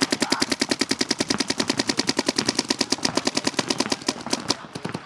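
Paintball markers firing in rapid, even streams of shots, the many sharp pops run together like machine-gun fire, thinning out and growing fainter after about four seconds.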